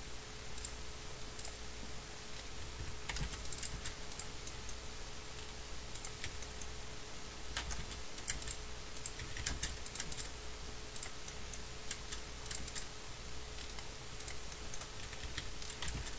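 Computer keyboard keys tapped in scattered, irregular clusters, over a faint steady hum.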